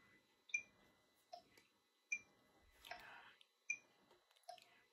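Metronome clicking faintly at quarter note = 76, one click about every 0.8 s, alternating between a higher and a lower pitched click, with a soft brief noise around three seconds in.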